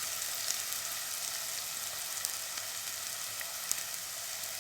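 Chopped onion frying in hot oil in a kadai for a masala base: a steady sizzle with a few small pops.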